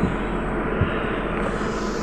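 Steady cabin noise of a moving Trolza-5275.05 Optima trolleybus: rumble of tyres and running gear on the road, with two low knocks, one at the start and one near the middle.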